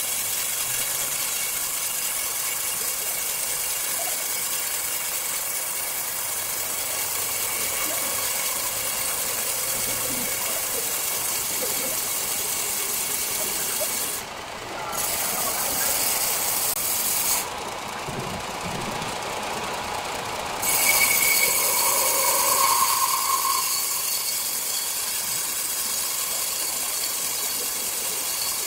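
Circular saw running with a steady high-pitched hiss, which drops away briefly twice near the middle.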